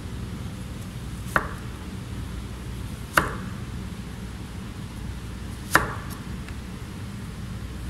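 Chef's knife slicing down through a block of raw carrot and striking a plastic cutting board: three single sharp chops a couple of seconds apart, with one more at the very end, over a steady low background hum.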